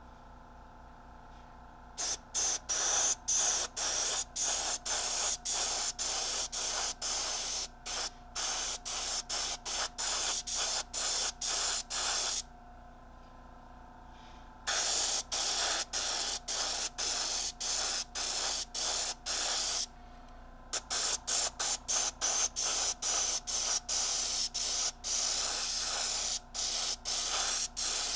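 Gravity-feed airbrush spraying paint in short, rapid hissing bursts as the trigger is pulsed on and off, with a pause of about two seconds midway and a shorter one later. A low steady hum runs underneath.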